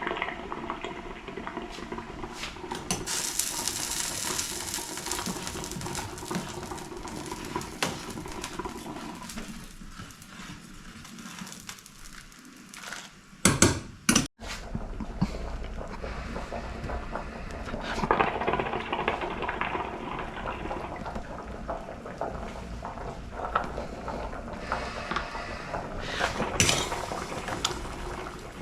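Kitchen cooking sounds: utensils clinking and scraping against pots and dishes, with many small clatters and a sharp loud knock about halfway through.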